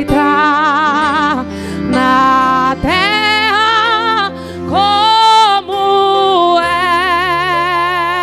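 A woman singing a gospel worship song into a microphone over guitar accompaniment, holding long notes with a wide vibrato.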